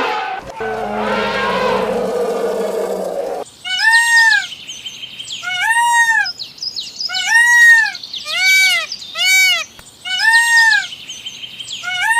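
Animal calls: a harsh, low call lasting about three seconds, then a run of high whistled calls that each rise and fall in pitch, about one a second, bunching closer together for a moment near the middle.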